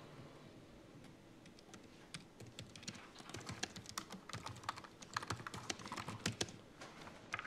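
Quick, irregular typing on a laptop keyboard, starting about two seconds in.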